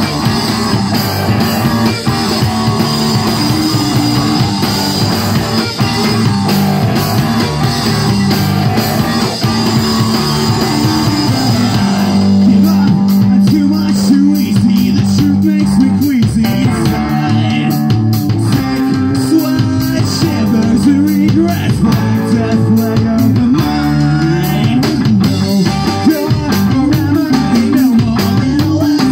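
Live rock band playing loud through a PA: electric guitars, electric bass and drum kit. About twelve seconds in the cymbals drop back, and a man sings over the band for the rest.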